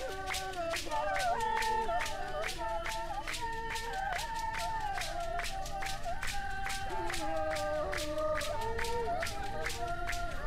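A group of voices singing together, several holding overlapping notes that shift every second or so, over a fast, even hand-clapping beat: the chant and clapping of a San trance (healing) dance.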